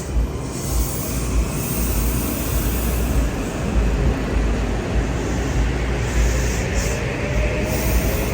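A train passing at speed: a steady loud rumble of wheels on rail with rushing air, and a faint rising whine in the last couple of seconds.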